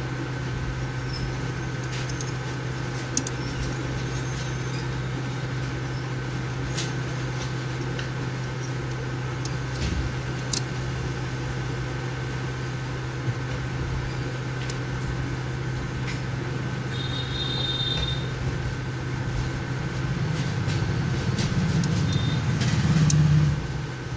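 Hot-air rework station blowing steadily, heating a phone's charging jack to melt its solder so the jack can be lifted off the board. A few small clicks come through, and the blowing grows louder near the end, then drops back.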